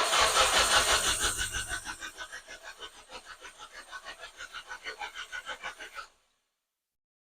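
Nissan Silvia S15's starter cranking the engine over without it catching. The first two seconds are loudest, then come even cranking pulses at about six a second, and the cranking cuts off abruptly after about six seconds. This is a no-start after the idle air control valve was cleaned.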